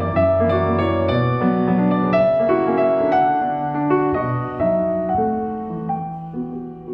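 Background music: a piano playing a slow melody over held chords, growing softer near the end.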